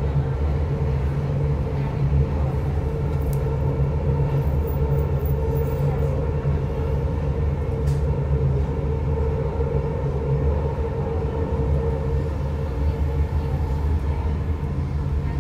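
Dubai Metro train running at speed along elevated track, heard from inside the carriage: a steady rumble with a constant hum over it.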